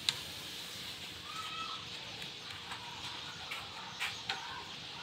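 Guinea pigs moving about a wire-mesh hutch floor, with sharp clicks and knocks, the loudest just after the start and two more about four seconds in, and one short high squeak about a second and a half in.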